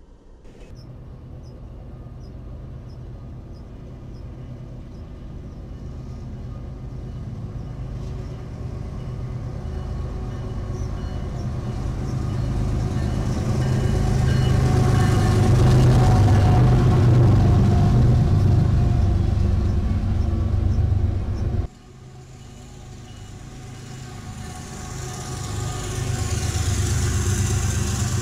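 CSX freight train's diesel locomotives approaching and passing close by, the engines' low drone building steadily to its loudest about two-thirds of the way through. The sound drops off suddenly, then builds again as the lead locomotives pass once more.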